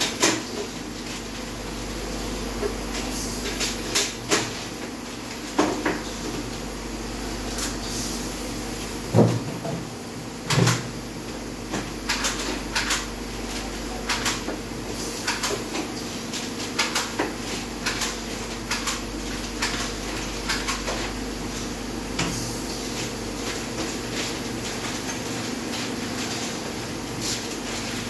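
Steelco steam sterilizer running mid-cycle: a steady machine hum with irregular sharp clicks and ticks, and two heavier thumps about a third of the way in.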